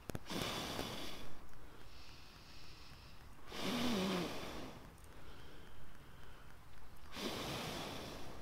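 A person blowing hard into a bed of glowing embers to rekindle a campfire: three long blows, each about a second, spaced a few seconds apart, the middle one with a little voice in it.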